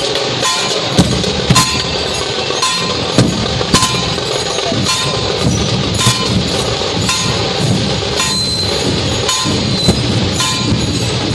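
Dhol drums of a street procession band playing with sharp ringing metallic clashes, in a steady beat of about two strokes a second.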